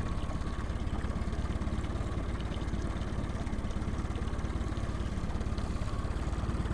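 Outboard motor on a small boat running steadily, with a fast, even low pulsing from its firing.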